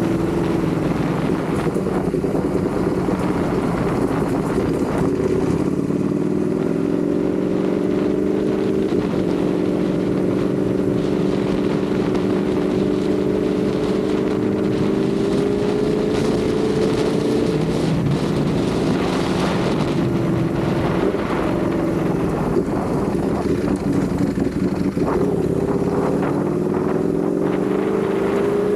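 Ducati Panigale V4 motorcycle's V4 engine running while ridden, its note climbing slowly for a long stretch, falling back about two-thirds of the way through, then rising again near the end.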